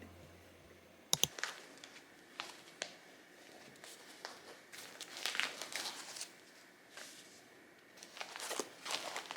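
Light rustling and scattered clicks of small objects being handled, with a sharp double click about a second in.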